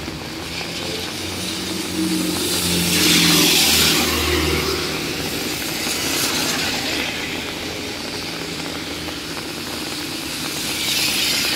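A car drives past on a rain-soaked road. Its tyre hiss on the wet tarmac swells and fades over a low engine hum about three seconds in, and a second swell of tyre hiss comes near the end, over the steady sound of the rain.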